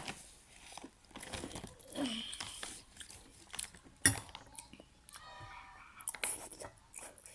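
Close-miked chewing and crunching of food in the mouth, in irregular bites with wet mouth sounds. There is one sharp click about four seconds in.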